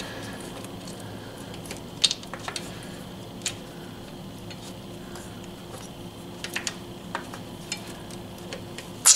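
Scattered small metallic clicks and scrapes of a clutch slave cylinder being worked into place by hand on a manual transmission, the sharpest click near the end. A steady low hum runs underneath.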